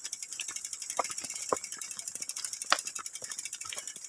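Mountain bike's rear freewheel hub ticking rapidly as the bike is wheeled along by hand, coasting without pedalling, with a few louder knocks from tyres and feet on loose stones.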